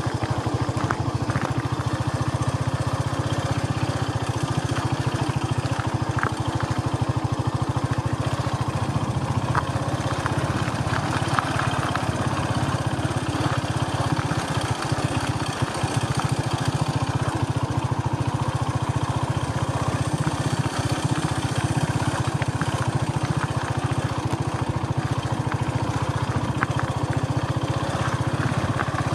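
Vehicle engine running steadily, a low even hum, with a few faint clicks now and then.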